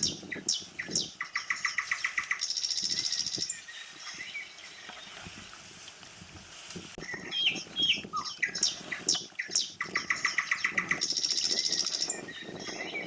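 A songbird singing the same phrase twice: a few quick whistled notes that run into a fast, buzzy trill.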